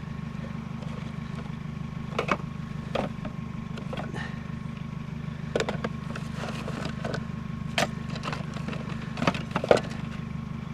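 Junk being moved and knocked together while rummaging through a trash pile: about half a dozen separate sharp clunks and knocks, the loudest near the end. Under them, an idling vehicle engine hums steadily and low.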